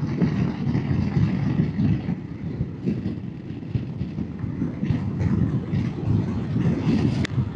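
Royal Enfield Himalayan motorcycle running, heard as a low, uneven rumble. A single sharp click comes near the end.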